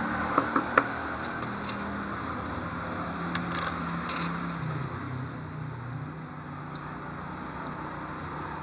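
Small metal parts of a sewing machine's hook assembly clicking and clinking as they are handled and separated: a few sharp clicks near the start, a louder cluster about four seconds in, and two faint ticks later. A steady low hum runs underneath.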